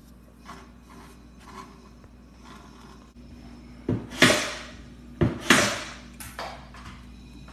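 Hard objects knocking and clattering: two loud clanks about four and five and a half seconds in, each with a short ringing tail, and a few lighter knocks around them.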